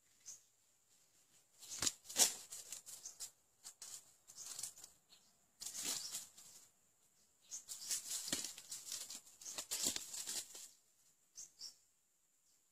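Red junglefowl moving through dry leaf litter: irregular bursts of rustling and scratching in the dry leaves, a few seconds apart, the longest running about 8 to 10 seconds in.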